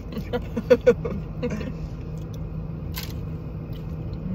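Steady low hum of a car's engine running, heard from inside the cabin, with a few soft mouth sounds near the start and one sharp click about three seconds in.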